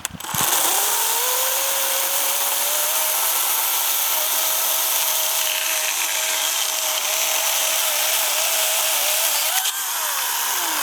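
Cordless electric chainsaw: its motor spins up with a rising whine, runs steadily with the chain whirring, then winds down with a falling whine near the end.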